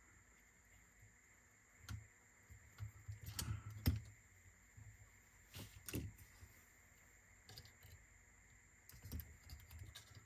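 Irregular small clicks and light knocks of parts and tools being handled inside an opened cassette deck's tape transport, with the busiest cluster about three to four seconds in.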